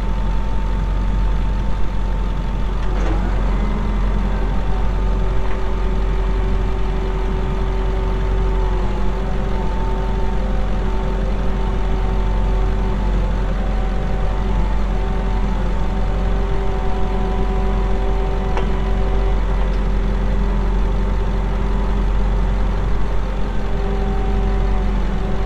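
Tractor diesel engine running steadily, with a steady whine above the rumble that shifts slightly in pitch a few times as engine speed changes.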